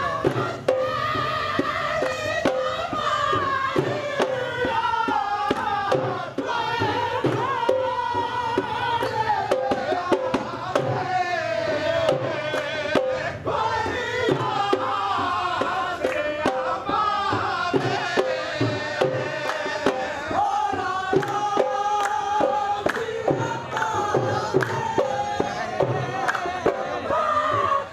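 Live Punjabi folk song: a singing voice with dense hand-drum percussion, going on steadily.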